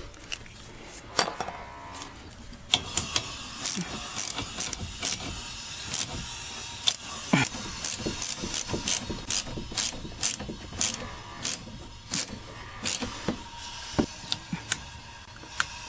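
Ratchet wrench clicking in short back-strokes, about two clicks a second, tightening a wiper arm nut on its post.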